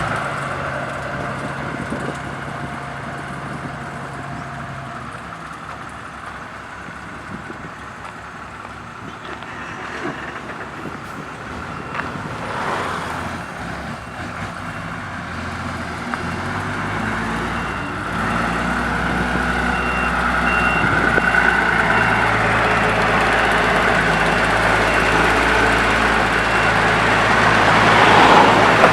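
Diesel road roller running during asphalt paving, growing louder with a deep low hum from about halfway through as it comes closer. A reversing beeper sounds in a row of short beeps in the second half.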